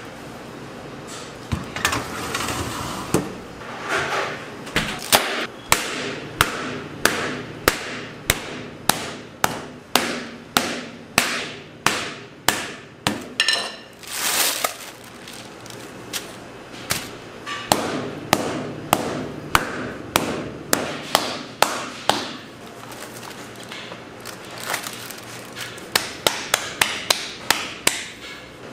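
Repeated sharp knocks on a hard work surface at a steady pace of about one and a half a second, pausing briefly, then a quicker run of about four a second near the end.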